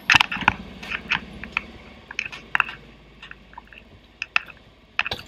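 Handling noise as a handheld camera is carried down a sailboat's companionway into the cabin: irregular clicks, knocks and rubbing, thickest in the first second and thinning out after.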